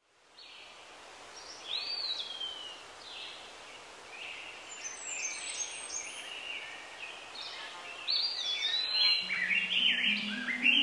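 Birdsong: several birds giving short, repeated whistled calls over a steady outdoor hiss. It fades in at the start. Near the end, low instrumental music comes in underneath.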